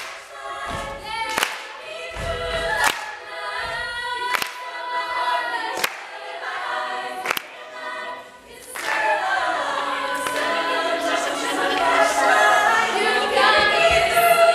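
A female a cappella group singing in close harmony, with sharp percussive clicks about every second and a half. From about nine seconds in, a denser mass of voices swells louder as the audience starts cheering over the closing chord.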